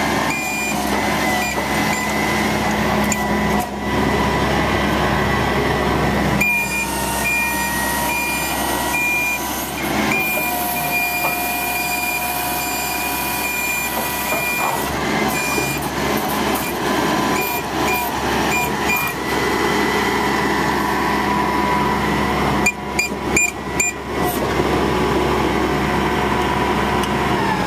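International digger truck's engine running steadily with some whining tones, while a warning alarm beeps in a steady on-off pattern through much of the stretch.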